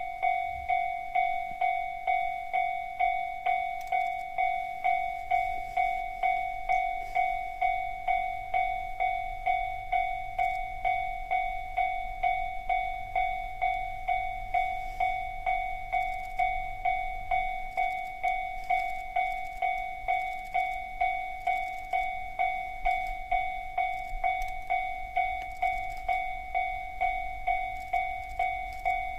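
Railway level-crossing warning bell ringing: an evenly repeating high 'kan-kan' chime, a little under two strikes a second, each strike decaying before the next.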